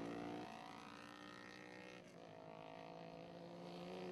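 Distant racing motorcycle engines running around the track, faint, their pitch shifting with gear changes: a sudden change about half a second in, a short dip around two seconds in, and a rising note near the end.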